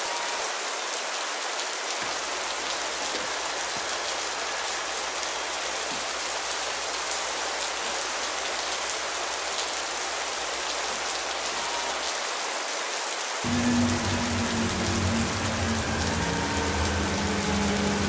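Steady heavy rain falling on hard surfaces. About thirteen seconds in, a low droning hum with a few steady pitches comes in under the rain and the sound grows louder.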